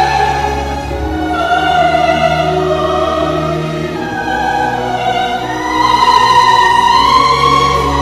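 Live opera music: voices singing long held notes over an orchestra, swelling louder a little before three-quarters of the way through.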